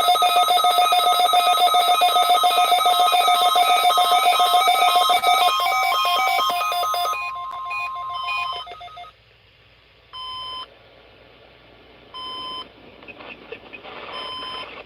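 Electronic alert tones from weather alert radios going off for an EAS/NOAA Weather Radio test. A loud, rapidly pulsing alarm of several steady pitches sounds for about seven seconds, then a steady tone near 1 kHz for about a second and a half, then short beeps about every two seconds.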